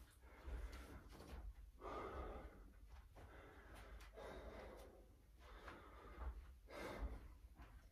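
A person breathing hard, faint in-and-out breaths about every second and a half, while resting and catching their breath after a set of push-ups.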